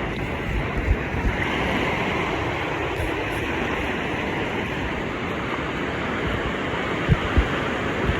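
Ocean surf breaking and washing up the beach, with wind buffeting the microphone in a few low thumps near the end.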